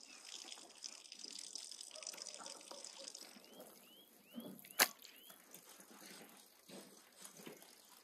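Wet raw beef tripe being handled and cut by hand, with soft wet drips and squelches and one sharp knife click on the board a little before the middle. Short rising bird chirps sound faintly behind it.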